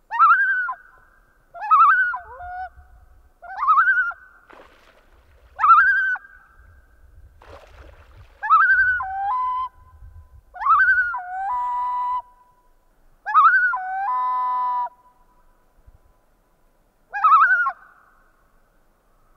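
Common loon calling repeatedly: eight loud calls, each a sharp rising then falling note, three of them trailing into a held steady note. This is agitated calling by loons guarding a chick, upset at a person nearby.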